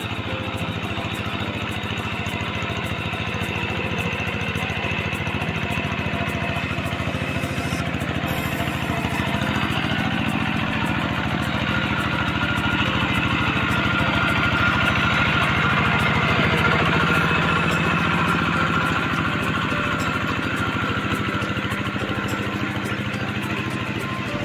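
A two-wheel hand tractor's single-cylinder diesel engine running steadily under load while plowing a flooded rice paddy. It grows louder as the tractor comes nearer, is loudest about two-thirds of the way through, then eases off a little.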